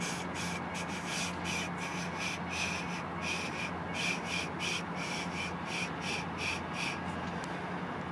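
BNSF diesel freight locomotive running with a steady low hum. Over it comes a rhythmic series of short scratchy sounds, about three a second, that stops about seven seconds in.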